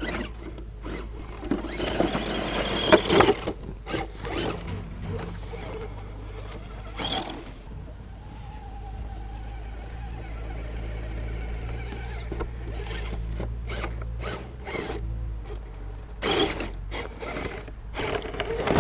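Axial SCX10 radio-control crawler truck being driven: a low steady motor and gear drone, with a faint whine in the middle, broken by repeated knocks and clatter from the truck working over the ground.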